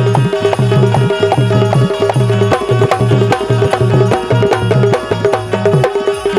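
Instrumental Bundeli Rai folk music: fast, driving hand-drum rhythm with deep bending bass strokes and sharp slaps over a steady held melodic tone, without singing.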